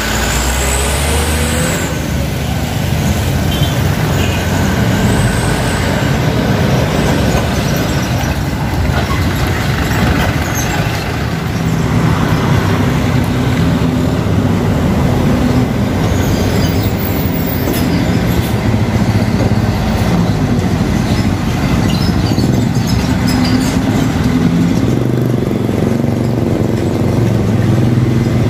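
Road traffic passing close by: a Mitsubishi Canter dump truck, a tour bus and heavy dump trucks driving past among motorcycles, their diesel engines running with steady tyre and road noise.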